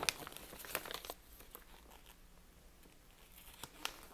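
Large folded paper instruction sheet rustling and crinkling as it is handled and turned over: a cluster of sharp crackles in the first second or so, a quieter stretch, then a few more near the end.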